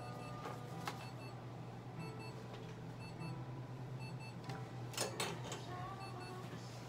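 Quiet exam-room hum with faint short electronic beeps repeating every second or so, from clinic equipment. A click comes about a second in, and two louder sharp clicks about five seconds in.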